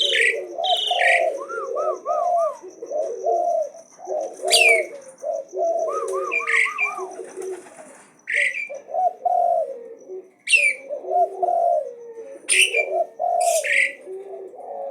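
Asian pied starling (jalak uren) singing continuously: sharp falling whistles every second or two, quick runs of short repeated looping notes, over a busy low warbling that never stops.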